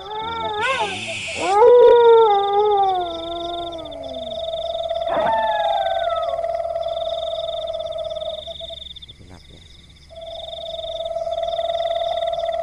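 Dogs howling: long drawn-out howls that slide slowly down in pitch and overlap, the first beginning about a second and a half in and another about five seconds in, followed by long held howls with a short break near the middle.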